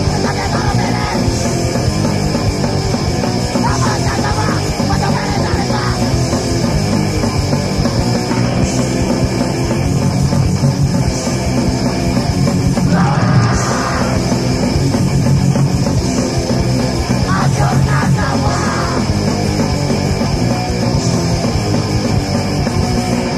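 Punk rock song playing loud and dense, with no breaks.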